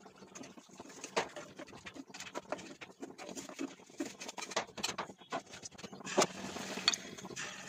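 Mysore bajji batter balls deep-frying in hot oil, sizzling with irregular crackles and pops.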